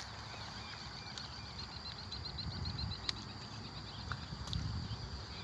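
Wild birds calling and singing, with a fast trill of short repeated notes about a second in, over a steady thin high whine and a low rumble; a single sharp click about three seconds in.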